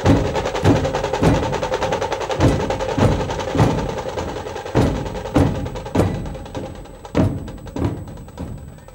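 Dhol-tasha drum troupe playing: heavy stick strokes on big dhol barrel drums about every half second, in groups, over a fast continuous rattle of smaller drum strokes. The playing gets quieter over the last few seconds.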